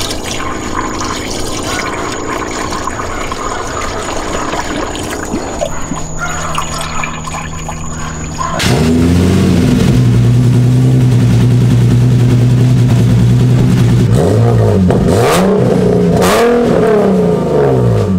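Turbocharged Nissan 370Z's 3.7-litre V6 running just after its first start with a newly fitted big turbo kit. About halfway through it suddenly gets much louder and holds a steady note, then is revved up and down a few times near the end.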